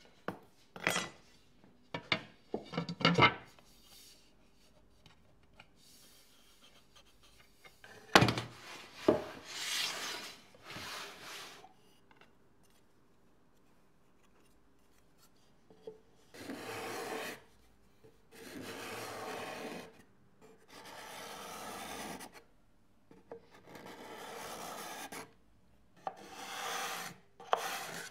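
Steel card scraper shaving the side of a wooden amplifier case in a series of long strokes, each a second or more, with short pauses between. Earlier, a few sharp knocks and clatters of wood and tools being handled on the bench.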